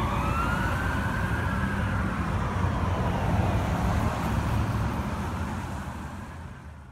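A fire engine's mechanical Q siren winds up over the first second and a half, then slowly winds down and fades with distance, over the low rumble of traffic. The whole sound fades out near the end.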